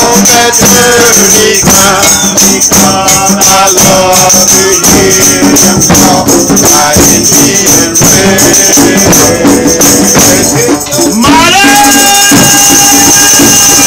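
Hand drums and shaker rattles playing a fast rhythm with voices singing. About eleven seconds in the drumming stops and a single long note slides up and is held steady.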